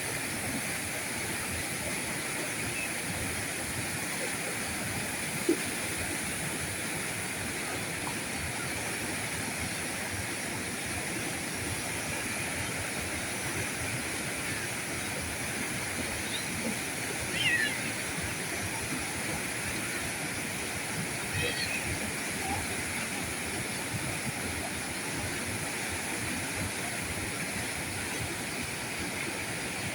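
River current flowing: a steady rush of water. A short tap about five seconds in and a few brief chirps a little past halfway.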